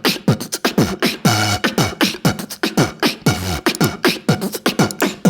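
Beatboxer's mouth imitation of a bottle sound effect: a fast run of sharp clicks and short pops that drop in pitch, several a second.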